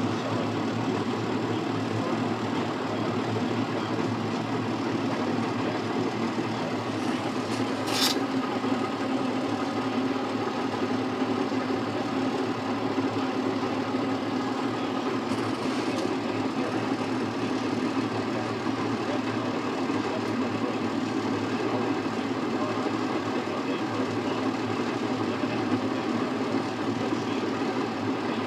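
John Deere 4055 tractor's diesel engine running steadily while pulling a round baler through hay, with the baler's mechanical clatter mixed in; a single sharp click about eight seconds in.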